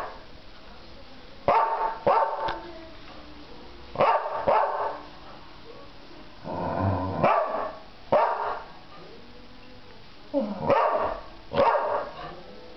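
Dog barking in short pairs every couple of seconds, about nine barks in all; the pair a little past the middle starts with a longer, deeper sound.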